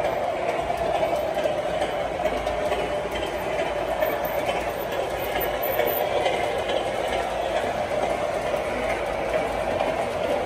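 O-gauge Lionel and MTH model trains running on the layout's track: a steady rolling rumble of metal wheels on rail from a freight train and an E8 passenger train passing together.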